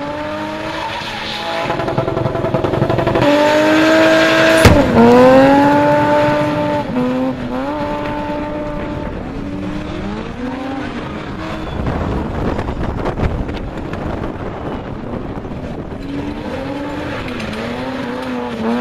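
BMW E30 spinning, its engine revved hard in repeated rising and falling surges while the rear tyres screech and smoke on the tarmac. A sharp bang about four and a half seconds in, at the loudest stretch; near the end the revs bounce up and down about twice a second.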